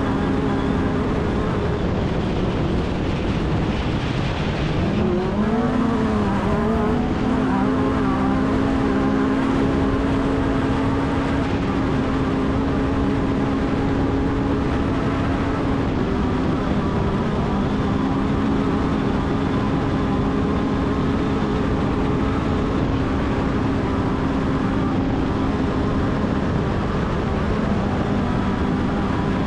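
Off-road race vehicle's engine running hard at a steady high pitch over a constant rushing noise, dropping and climbing back in pitch about five seconds in and again a little past the middle.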